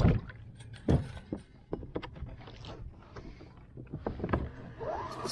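Knocks and clicks of gear being handled on a plastic sit-on-top fishing kayak while anchoring, with a heavy thump at the start and another about a second in, then smaller scattered clicks.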